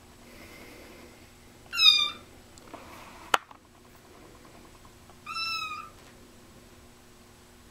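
Young kitten meowing twice, high-pitched mews a few seconds apart, the second softer and a little longer. A single sharp click falls between them.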